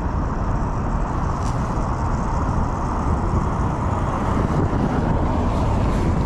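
Steady low rumble of city traffic mixed with wind on the microphone, with no distinct events.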